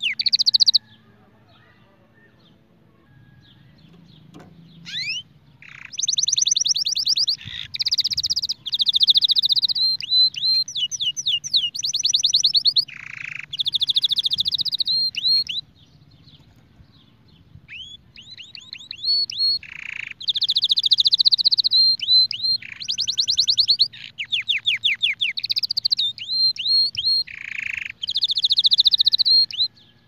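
A white domestic canary singing in long phrases of fast trills and rolling notes, with a few seconds of quiet about a second in and a short pause around the middle.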